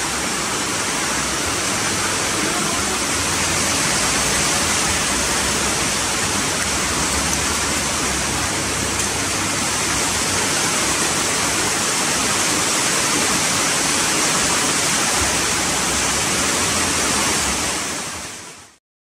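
Food sizzling steadily in a frying pan over a gas burner, a dense even hiss that fades out near the end.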